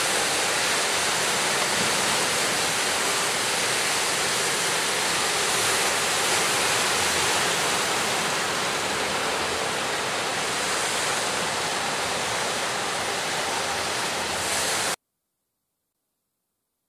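Sea waves and surf making a steady, even rushing noise, which cuts off abruptly near the end.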